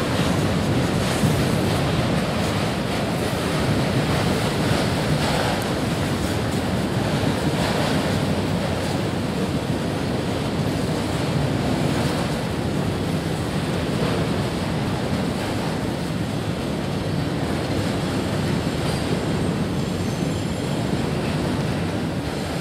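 Freight train of covered hopper cars rolling past: a steady rumble and roar of steel wheels on the rails, mixed with wind on the microphone.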